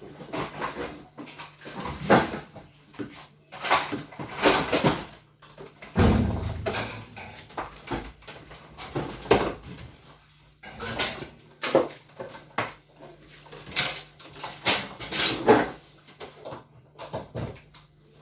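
Irregular knocks, scrapes and clattering of hard objects being handled, with a heavier thump about six seconds in.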